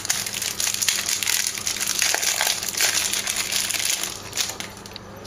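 Plastic card wrapping crinkling as hands handle it and pull it open. The crinkling is dense at first and eases off about four seconds in.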